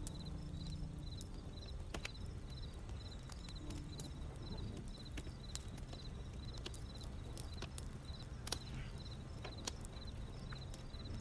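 Wood fire crackling: sharp, irregular pops and snaps over the low, steady rumble of the burning flames.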